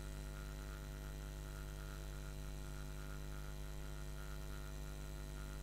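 Steady low electrical mains hum with no music or other sound over it.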